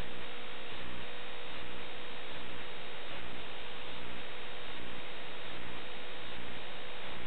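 Steady hiss with a low hum and a thin steady tone, cut off above about 4 kHz and swelling faintly about once a second: noise on the audio channel of an analog FPV video link.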